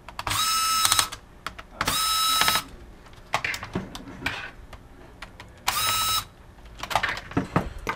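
Small electric screwdriver whirring in three short bursts, each under a second, backing out the screws that hold a laptop's CPU cooling unit. Light clicks and taps of the tool and screws come between the bursts.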